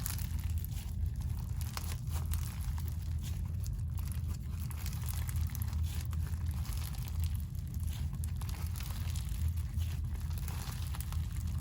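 Clear slime packed with crunchy straw bingsu beads being squished and stretched by hand, giving a steady run of small, irregular crunchy crackles over a low steady hum.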